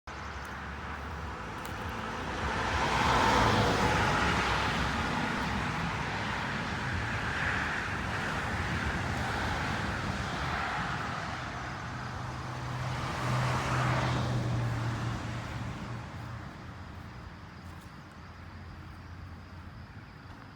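Road traffic: vehicles passing by, with two louder swells as cars go past, the second carrying a low engine hum, fading near the end.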